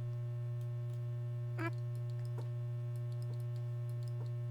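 Steady low electrical mains hum, with a few faint short clicks spaced about a second apart.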